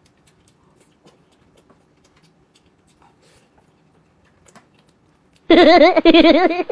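Faint room tone with a few light clicks. About five and a half seconds in, a loud warbling tone starts abruptly and lasts about a second, its pitch wavering quickly up and down.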